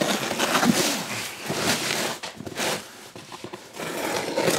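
Knife slicing through packing tape on a cardboard shipping box, in several scraping strokes, with cardboard rustling and scraping as the box is worked open.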